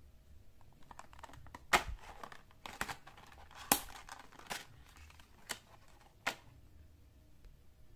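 Clear plastic blister pack crinkling and cracking as it is pulled and torn away from its cardboard backing card, with several sharp snaps of plastic and card spread over a few seconds.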